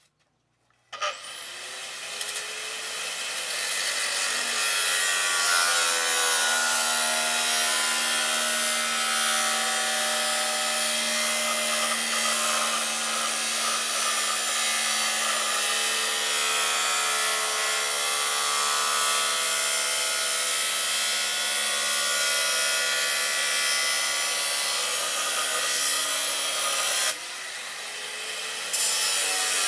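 Corded angle grinder spinning up with a rising whine about a second in, then cutting through a scrap metal sheet with a steady high whine and hiss. The level drops for a moment near the end before the cut picks up again.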